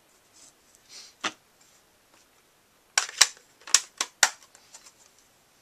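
A quiet stretch with a faint brush and a click, then about half a dozen sharp clicks and taps in about a second and a half, from hard plastic ink pad cases being handled and set down on the cutting mat.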